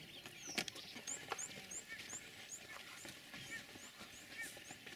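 Faint squirts of milk into an enamel cup as a goat is hand-milked, with a bird repeating a short high chirp about three times a second from about a second in, and one sharp click about half a second in.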